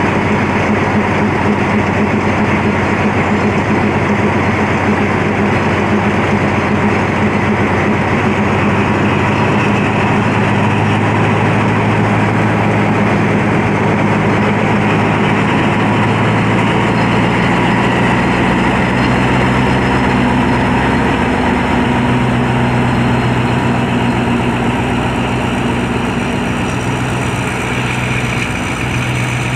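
Alsthom AD24C diesel-electric locomotive's engine running loud and steady as it starts the train away from the station, its note stepping up about ten seconds in. The sound eases slightly near the end as the locomotive draws off.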